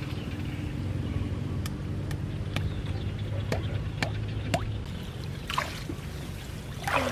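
A small motor hums steadily and fades out about five seconds in, over scattered clicks and splashes of water.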